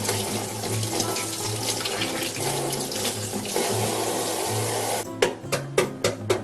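Kitchen tap running water into a sink, steady, cutting off about five seconds in. It is followed by a quick series of sharp taps.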